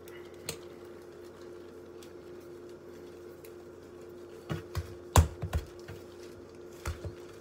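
Hands working a ball of bread dough on a countertop: a few soft knocks and thumps from about four and a half seconds in, the loudest a little after five seconds, and two more near the end. A steady hum at one pitch runs under it.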